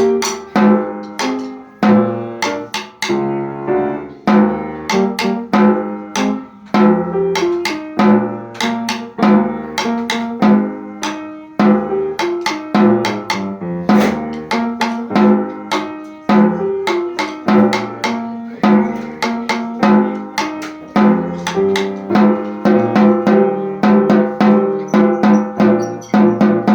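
Music with a snare drum playing a steady rhythm of sharp strikes over sustained pitched instrument notes.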